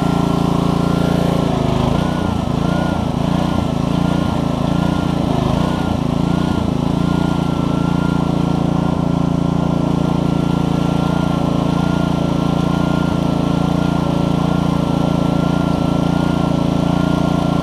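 Honda GCV160 single-cylinder engine running a pressure washer pump, running well on a newly replaced carburetor. About two seconds in, its pitch wavers up and down for several seconds, then settles to a steady run.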